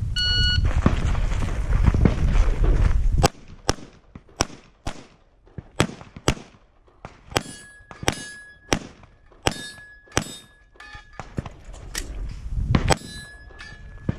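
An electronic shot timer beeps once at the start, then a handgun fires about twenty rapid shots, roughly two a second, in strings with a short pause, as the shooter moves through a USPSA stage. Steel targets hit by the bullets ring with a brief clang after several of the shots.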